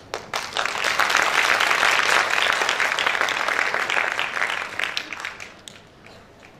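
Audience applauding, swelling within the first second and dying away about five to six seconds in.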